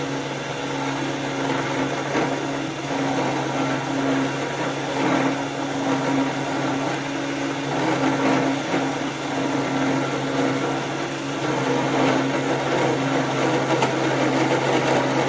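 Cheap 775 DC motor spindle running steadily with a 10 mm end mill cutting into a finned metal engine cylinder: a steady motor hum with the rough noise of the cut over it.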